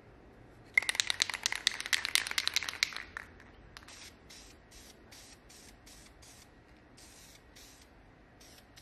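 Aerosol spray can shaken hard, its mixing ball rattling rapidly for about two seconds. It is then sprayed in a string of short hissing bursts, about three a second, coating a steel clamp bar.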